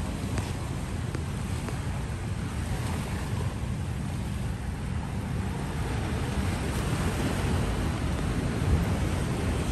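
Sea waves washing against a rocky shore with surf breaking farther out, and wind rumbling on the microphone.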